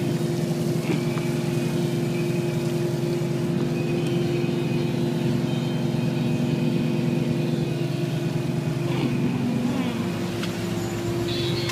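A boat's engine running steadily, a constant low hum that holds the same pitch throughout.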